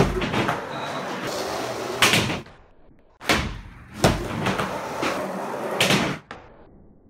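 Skateboard wheels rolling with a rumbling noise on a painted quarter pipe and hard floor, broken by about five sharp clacks and slaps of boards landing and tails striking the ramp. Quieter near the end.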